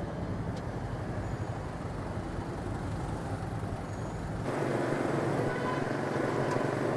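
Motor scooter engine running under the rider with street traffic around. About four and a half seconds in the sound turns louder and rushier as the scooter gathers speed through the intersection.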